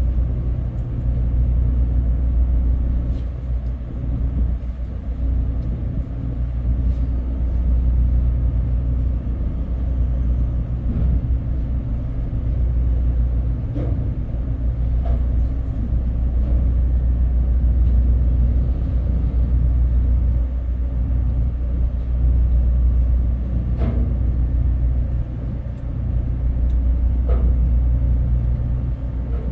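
Steady low hum of a ship's engine machinery running at constant pitch, with a few faint clicks over it.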